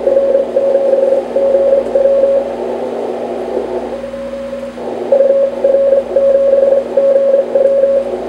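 Morse code (CW) signal from an amateur radio transceiver's speaker: a single tone keyed on and off in dots and dashes over steady band hiss, with a low steady hum beneath.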